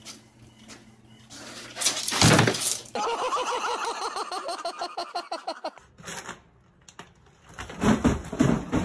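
Desk printer running and feeding a sheet out. A short loud clatter comes first, then a rapid, evenly repeating whirr from the print mechanism for about three seconds.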